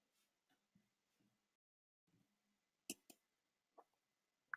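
Near silence: room tone, with a few faint computer mouse clicks, a quick pair about three seconds in and two more near the end.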